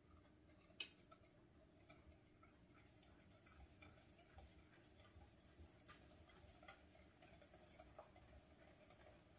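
Near silence with faint light clicks and taps of a metal measuring cup against a glass mixing bowl while dry ingredients are added, and one sharper click about a second in.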